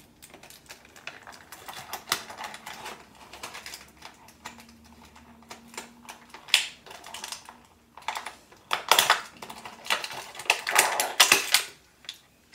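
Hands working a Bakugan toy out of its plastic packaging: irregular small clicks, rattles and crinkles of plastic, getting busier and louder in the last few seconds.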